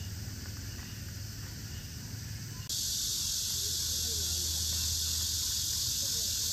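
Steady high, even buzzing of an insect chorus, coming in abruptly about two and a half seconds in and holding without a break.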